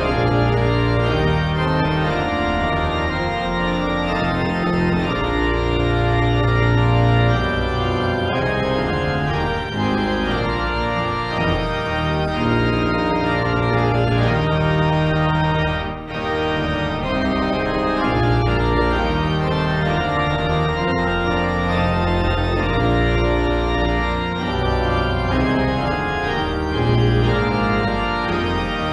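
Organ music: slow, held chords with deep bass notes, changing every second or two.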